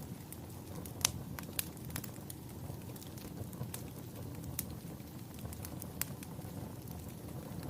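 Fire crackling: a steady low rumble of burning with sharp, irregular pops and snaps scattered through. The loudest pop comes about a second in.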